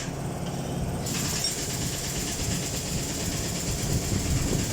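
Steady low engine rumble, with a high hiss that joins about a second in.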